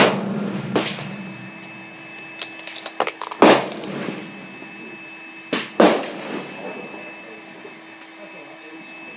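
Rifle shots at a shooting range, each a sharp crack with a ringing tail: a loud one at the start, another under a second later, one at about three and a half seconds, and a close pair near six seconds, too quick for one bolt-action, so more than one rifle is firing. Light clicks sound between them.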